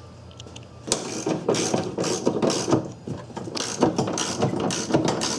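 Hand ratchet wrench clicking in quick strokes, running in the fuel-tank strap bolt. The clicking starts about a second in.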